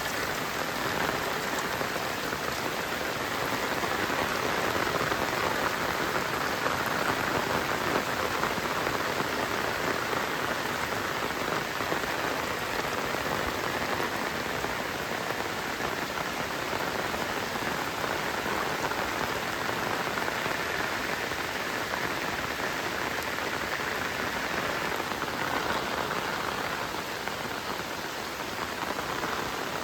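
Heavy rain falling steadily, a dense, even hiss of drops on surfaces.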